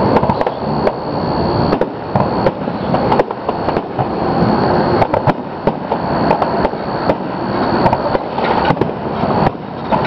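Aerial firework shells bursting in quick succession: a continuous rumble of booms with many sharp bangs and crackles throughout.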